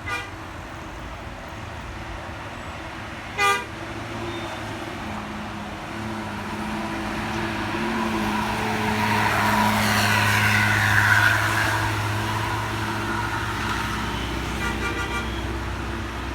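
A heavy bus passes close on the road, its engine and tyres swelling to their loudest about two-thirds of the way through and then fading. Short air-horn toots sound just at the start and again about three and a half seconds in, and a quick run of short toots comes near the end.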